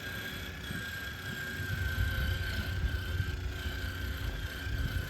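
Axial SCX6 RC crawler's electric drive motor whining at a steady high pitch as the truck drives, under a low rumble that grows from about two seconds in.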